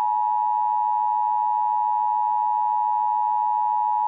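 Emergency Broadcast System attention tone: a single steady, unbroken electronic tone held at one pitch.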